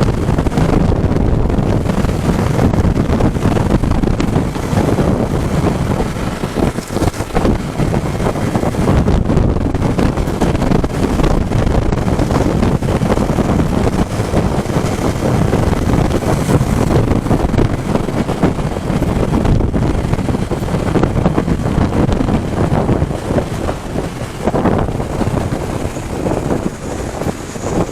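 Strong wind buffeting the microphone of a moving motorcycle, a loud, steady rushing roar with rapid flutter, with the motorcycle and road noise underneath.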